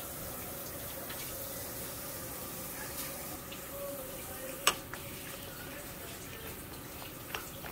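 Metal spoon stirring yogurt and spice powders in a glass bowl, with one sharp clink of spoon on glass a little past halfway and a few fainter taps, over a steady background hiss.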